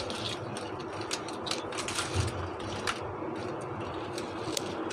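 Whole giant freshwater prawns being rubbed by hand with salt and turmeric on a stainless steel plate: irregular small clicks and scrapes of the hard shells against the metal, with a soft bump about two seconds in, over a steady background hiss.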